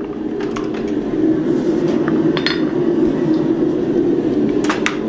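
Cross peen hammer striking hot steel on an anvil in a few separate blows: one about halfway through and two in quick succession near the end. A steady drone runs underneath.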